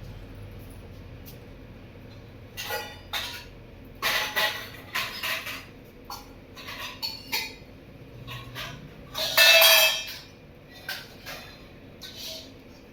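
Pet parrot giving a series of short, shrill squawks and calls, about half a dozen, the loudest and longest about nine and a half seconds in.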